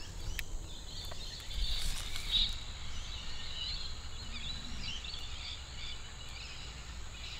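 Quiet outdoor ambience: scattered faint bird chirps and insect calls over a steady low rumble of wind.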